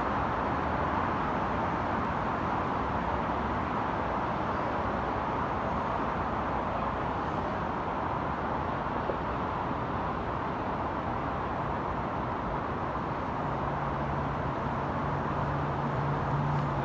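Steady, even roar of road traffic. A low steady hum joins in near the end.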